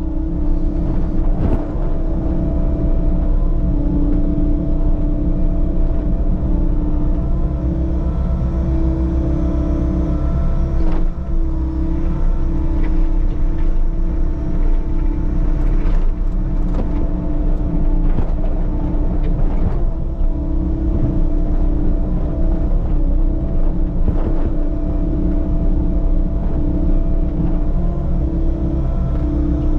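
Diesel engine of a compact construction machine running steadily under work, with a strong, constant hum and low rumble, and a few sharp knocks scattered through.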